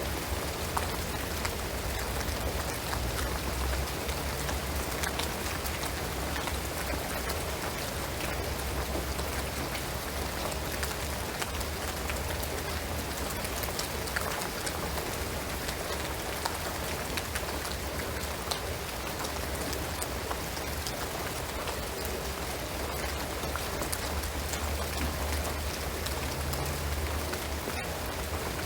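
Steady rain falling on a shingled roof and pine trees, many small drop patters over an even hiss, with a constant low rumble underneath.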